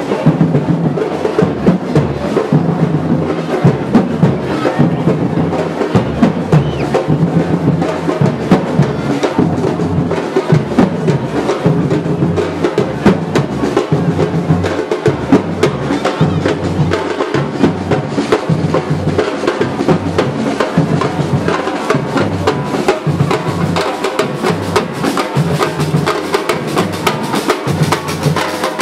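Loud drumming: many quick drum strokes in a continuous, unbroken rhythm.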